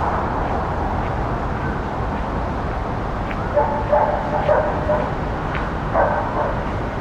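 Evening city park ambience: a steady low hum of distant city noise, with a dog barking several times a little past the middle and once more near the end.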